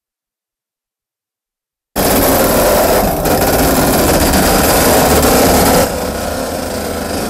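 Silence, then about two seconds in a loud, dense grinding rumble starts abruptly: a CRRC passenger locomotive's steel wheels rolling slowly along rail track. It drops a little in level near the end.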